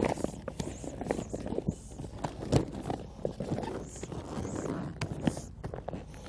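Deflated inflatable kayak hull being rolled up and pressed down by hand: the fabric rustles and scuffs, with irregular soft thumps as the remaining air is pushed out.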